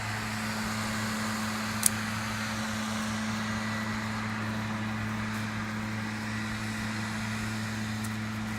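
A steady low mechanical hum with a hiss over it and a single sharp click about two seconds in.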